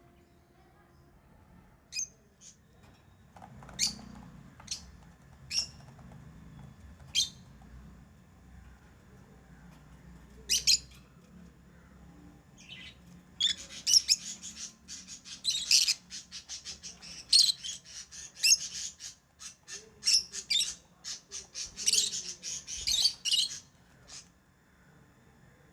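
Pet lovebirds calling: single sharp, shrill chirps every second or two, then from about 13 seconds in a long run of rapid chirping that stops about a second before the end.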